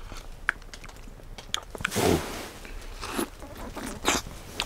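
A person tasting yogurt: soft mouth and eating sounds with a few short clicks, the loudest about two seconds in.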